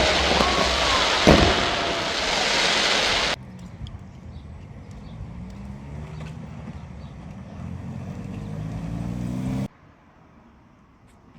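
Loud crackling noise with two sharp bangs and whistling glides, cut off abruptly, then a motor vehicle engine running with its pitch rising steadily for about six seconds before it too cuts off.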